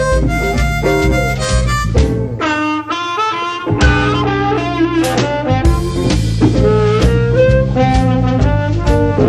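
Blues band recording: a harmonica plays a bending melodic solo over bass and drums. About three seconds in, the bass and drums drop out for roughly a second while the melody carries on, then the band comes back in.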